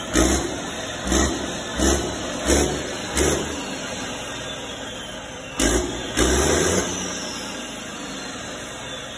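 Large diesel generator set running roughly just after starting, its engine surging in loud bursts about every three quarters of a second while puffing black smoke, then settling to a steadier run broken by a couple more surges.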